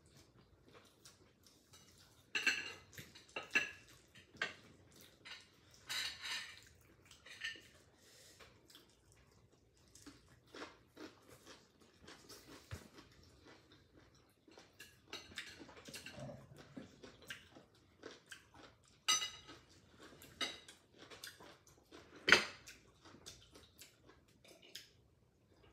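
Chopsticks and dishes clinking and tapping on plates and bowls during a meal, with chewing between. The clinks come scattered and irregular, the sharpest a few seconds in and again near the end.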